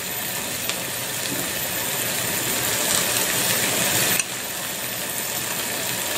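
Sliced water chestnuts and bamboo shoots sizzling in a saucepan on a gas hob, a steady hiss that drops suddenly a little over four seconds in.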